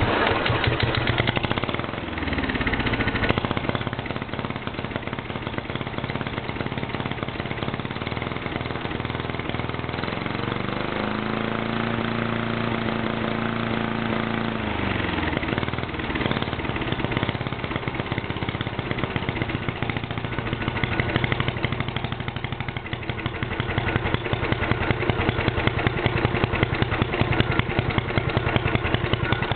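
Tecumseh single-cylinder lawnmower engine running loud through dual exhaust pipes. It is revved up about ten seconds in, held for a few seconds, then drops back to a rough idle that pulses more unevenly near the end. The uploader says a bad carburettor keeps it from reaching full revs.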